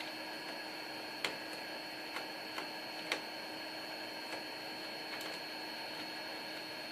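Steady electrical hiss and hum, with five light, scattered clicks and taps. The clicks are typical of handling computer parts and screws while fitting a motherboard into a PC case.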